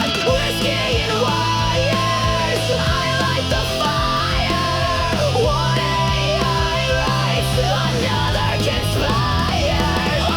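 AI-generated heavy metal–style music: dense distorted instruments over held low bass notes, with a bending, wavering lead melody on top.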